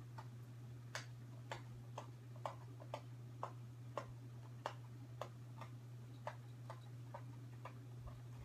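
Light sharp ticks, about two a second and not quite even, over a steady low hum.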